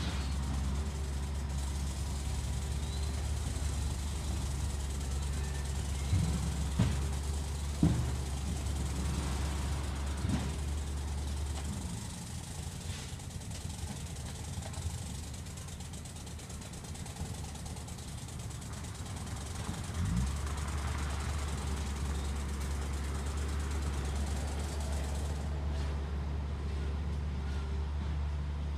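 Heavy machinery engine running steadily with a low hum, with a few sharp knocks about six to ten seconds in. The engine sound drops away about twelve seconds in and comes back with a knock about twenty seconds in.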